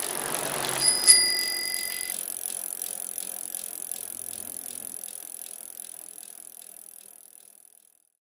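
A bicycle freewheel ticking as the wheel coasts, fading away over several seconds. A single bell ring comes about a second in.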